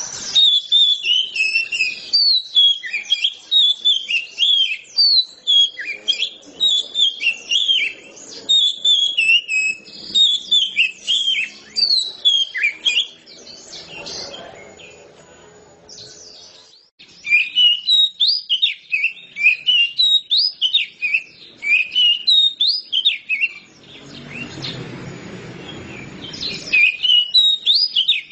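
Oriental magpie-robin in full song: long runs of quick, varied chirped and whistled phrases, with a pause about halfway through. Near the end a low rushing noise lasts about three seconds before the song picks up again.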